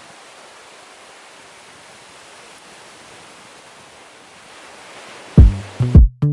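A steady, even rushing hiss, like surf or wind noise. About five seconds in, electronic music with a heavy drum-machine beat cuts in loudly.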